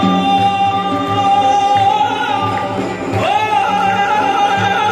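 Music with a high voice singing long held notes over a steady low beat. About three seconds in, the voice slides up into a new note held with a wavering vibrato.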